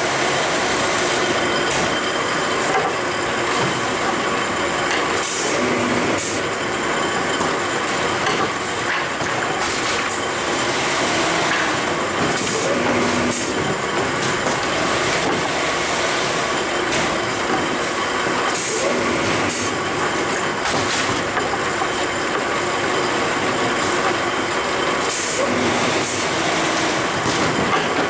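Paper tube edge grinding machine running: a steady mechanical noise with short hissy bursts every few seconds.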